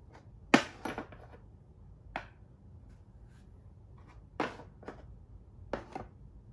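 Plastic Thai chess (makruk) pieces clacking on a plastic board as moves are played and a captured piece is put down in the side tray: a series of short, sharp knocks in three or four clusters, the loudest about half a second in.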